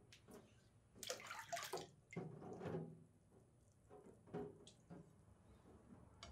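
Wet hand sharpening of a yanagiba sashimi knife on a whetstone: a few short bursts of water splashing and the blade scraping on the wet stone, loudest about a second in, then fainter.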